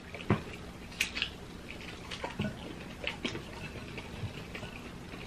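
Close eating sounds: chewing of breaded pork cutlet and rice, with a few short clicks and taps of a spoon and chopsticks against the bowls.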